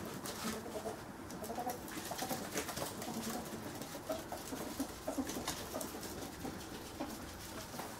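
Pet ferrets dooking: rapid, soft clucking notes, the sound ferrets make when excited at play, mixed with clicks and taps of their claws on a wooden floor.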